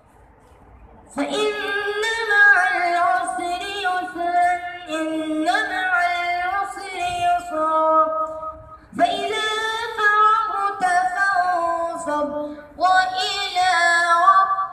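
A boy reciting the Quran in a melodic, chanted style into a microphone: long held notes that waver and glide in pitch, in phrases broken by short breaths. The voice comes in about a second in, after a brief pause.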